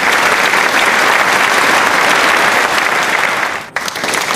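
Loud applause: many hands clapping in a dense, even patter, with a brief dip about three and a half seconds in before it picks up again.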